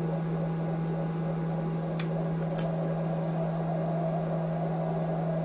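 Steady low hum with room noise, and two faint clicks about two seconds in.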